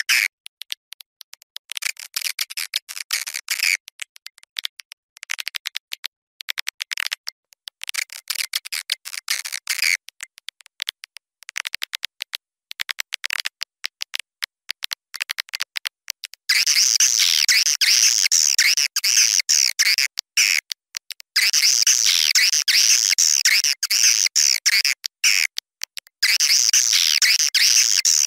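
Swiftlet lure recording: rapid chittering and twittering calls of swiftlets in quick runs broken by short gaps. About sixteen seconds in, the calls turn louder, denser and higher-pitched.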